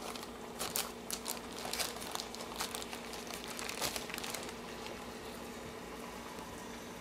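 Wax paper crinkling and rustling as it is peeled off raw chicken breasts: irregular crackles over the first four or five seconds, then quieter.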